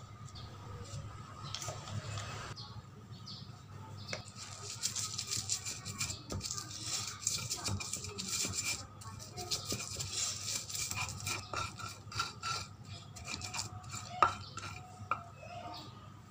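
Stone pestle grinding chillies, garlic and salt in a stone mortar (cobek and ulekan): a dense, gritty scraping with small irregular knocks, starting about four seconds in, and one sharper knock of stone on stone near the end.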